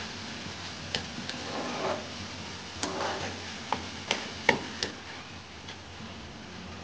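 A spatula stirring banana-flower bhaji in a black kadai, scraping and knocking against the pan in a string of sharp clicks, the loudest about four and a half seconds in.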